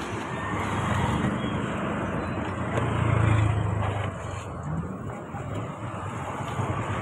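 Road traffic noise with vehicle engines running, swelling louder about three seconds in.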